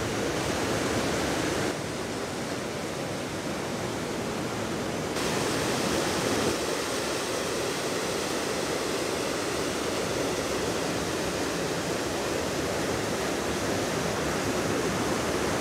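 River in spate rushing and falling through a rocky gorge: a steady, unbroken roar of water, swollen after heavy overnight rain.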